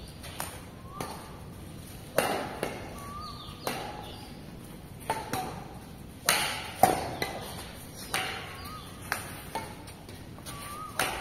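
Badminton racket strikes on a shuttlecock in a rally: sharp cracks at irregular intervals about a second apart, each with a short echo, and a few brief squeaks between the hits.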